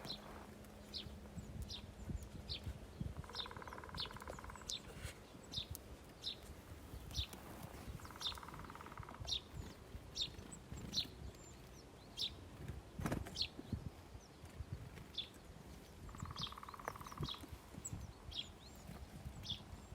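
Small birds chirping at a feeder: short high chirps repeating about once or twice a second throughout. A lower, buzzy call about a second long comes three times, near the start, in the middle and near the end.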